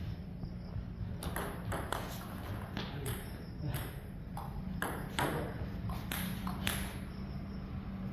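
Table tennis ball clicking off rackets and the table in a rally: a string of sharp ticks, about one every half second to second, over a steady low hum.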